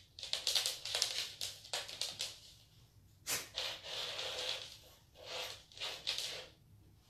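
Dachshund snorting and sniffing close by in several irregular breathy bursts.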